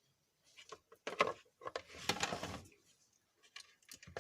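Irregular plastic knocks, clicks and scrapes as a mixer grinder's motor and body parts are handled and fitted together, with a longer scraping rustle about two seconds in.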